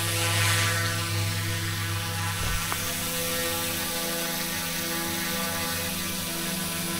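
Eachine E120S RC helicopter's electric motor, gears and rotor whirring as it spins up at low head speed and lifts off, a steady mechanical whine whose tone shifts about halfway through, with a couple of light clicks a little before.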